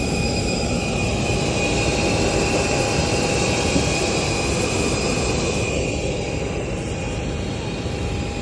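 Steady airliner cabin noise: a continuous rush of air with several steady whining tones running through it.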